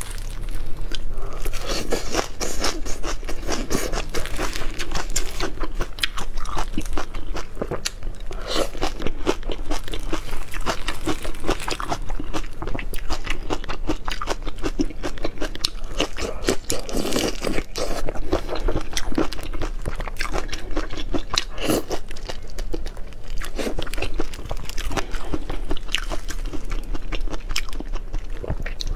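Close-miked eating of coriander and prawns: crunching bites and chewing, one after another.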